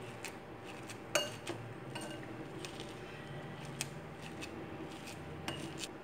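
Steel spoon mashing hot cooked rice in a glass bowl: scattered soft clinks and taps of the spoon against the glass, the sharpest about a second in.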